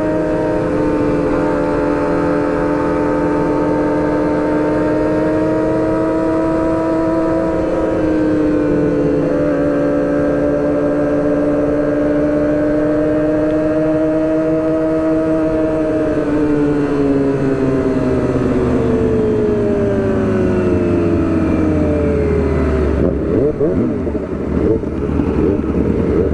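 Motorcycle engine running at steady revs. About sixteen seconds in, its pitch falls steadily as it slows, and near the end the even engine note gives way to a rougher low rumble.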